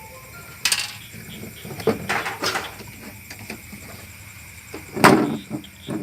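Knocks and clatter from a refrigerator's parts being handled during disassembly, several separate strikes with the loudest about five seconds in.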